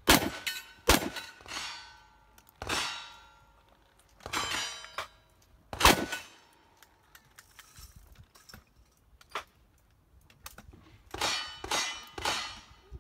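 A string of gunshots at steel targets, each shot followed by the clang and ringing of struck steel. The shots come unevenly, with a pause of several seconds before a quick final run of three.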